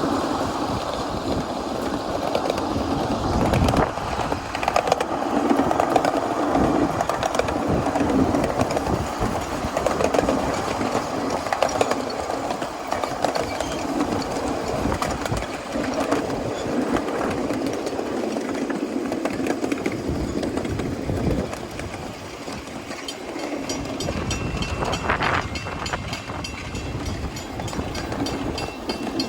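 Miniature 7¼-inch gauge live steam train running along the track, a continuous busy rattle and rumble.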